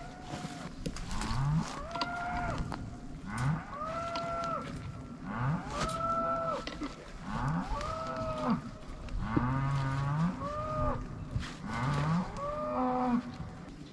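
Cattle mooing repeatedly, a run of about ten short calls one after another, each rising in pitch.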